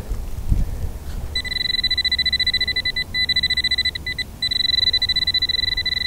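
Nokta AccuPoint pinpointer sounding a high, fast-pulsing beep as it is pushed through a dug soil plug: the signal that it is right on a metal target. The beep starts about a second and a half in and breaks off briefly twice, with soft soil and glove handling noise at the start.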